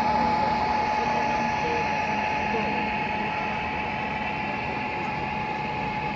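Crowded exhibition-hall ambience: many people talking in the background, with a steady tone running throughout.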